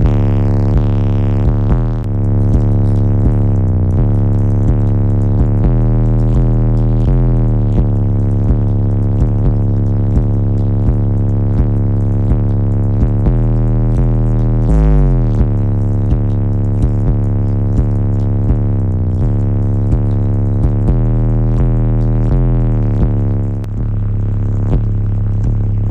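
Bass music played loud through a car audio system of six Audio Ace Jester 15-inch subwoofers on two Wolfram Audio Arctic Wolf 9K amplifiers: a heavy, steady low bass tone under a regular beat, with a sliding drop in pitch a little past halfway.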